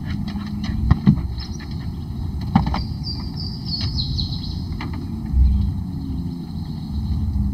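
A crawfish trap line is hauled hand over hand into a small boat, with a few sharp knocks and clicks over a low steady rumble. About three seconds in, a bird calls with a short run of high, falling chirps.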